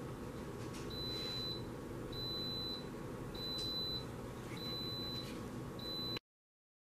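Electronic appliance beeper sounding five steady high-pitched beeps, each about half a second long and about a second apart, over a low steady hum; the sound cuts off suddenly near the end.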